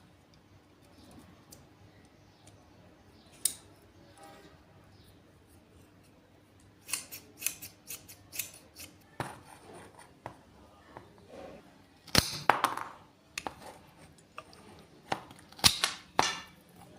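Scissors snipping in short runs of quick, crisp cuts, with quiet between runs. The loudest snips come in the second half.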